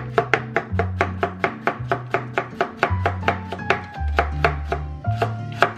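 Chef's knife dicing carrots on a plastic cutting board: a fast, even run of sharp chops of the blade against the board, about five a second, with background music underneath.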